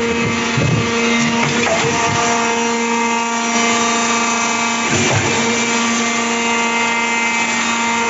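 Electric concrete pump running, its motor-driven hydraulic pump giving a steady whine, with a clunk about five seconds in.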